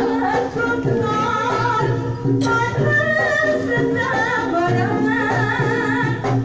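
Javanese barongan dance music: gamelan-style instruments playing steady tones under a sung vocal line that wavers up and down, with a sharp percussion strike about two and a half seconds in.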